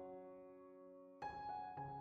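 Background music of slowly fading struck notes, with a new chord struck a little over a second in.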